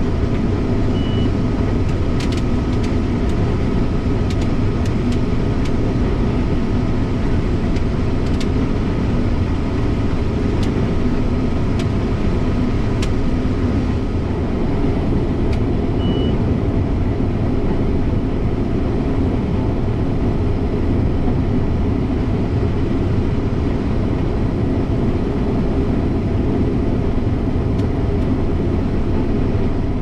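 Combine harvester running steadily while harvesting soybeans: a constant loud machinery drone with a faint steady whine. Two short high beeps sound about 15 seconds apart.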